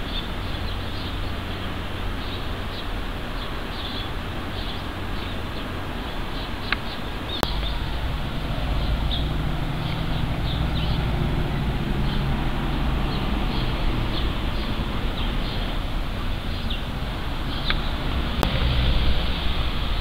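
Steady outdoor background noise: a low rumble with faint, short, high chirps scattered through it. A sharp click comes about seven seconds in, after which the low rumble grows louder.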